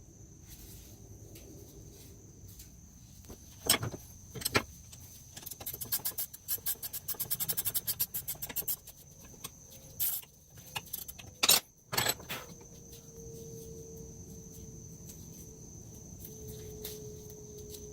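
Metal nuts and bolts clinking and tapping as crushed-walnut tumbling media is cleared out of their pressed-on washers: a few sharp clicks, a quick run of rapid rattling ticks, then more sharp clicks. A steady high whine runs underneath, and a steady low hum comes in about two-thirds of the way through.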